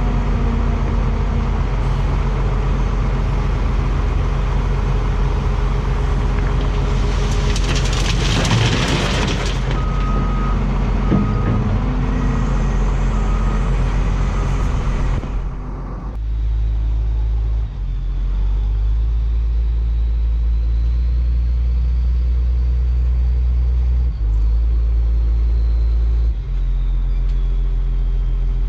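International 4700 dump truck's diesel engine running steadily as the truck drives. A loud hiss rises and falls about eight seconds in. From about sixteen seconds on, it gives way to a deeper, heavier rumble.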